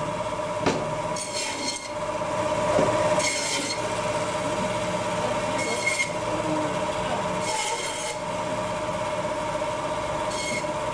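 Meat band saw running with a steady whine. Its blade rasps through bone-in meat in four short cuts.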